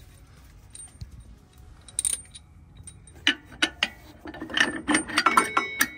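Metal clinks and knocks as the lower end of a new truck shock absorber is worked onto its mount and lined up. A single clink comes about two seconds in, then a quick run of clicks and knocks with some metallic ringing near the end.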